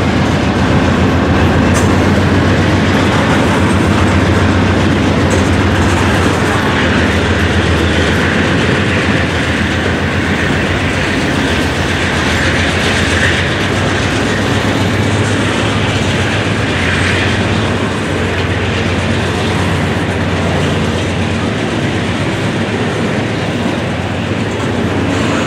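Freight cars (tank cars and boxcars) rolling past: a loud, steady noise of steel wheels on rail, with wheels clicking over the rail joints.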